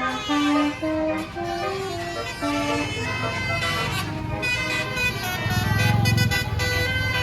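Tour bus basuri air horn playing a tune, its notes stepping from pitch to pitch a few times a second, over a low engine rumble that swells near the end.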